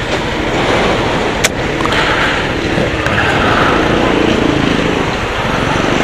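Wind rumbling on an external microphone, with a motor scooter's engine idling underneath as a steady low pulse. A single sharp click sounds about one and a half seconds in.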